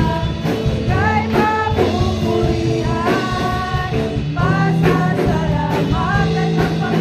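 A praise song sung by a woman's voice through a microphone and PA, over amplified music with a steady beat.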